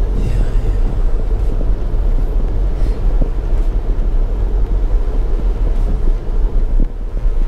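Car driving at town speed, heard from inside the cabin: a steady low rumble of engine and road noise.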